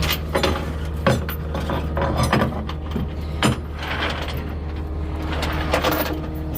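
Scattered knocks and clunks of loose parts being moved about, over a steady low hum.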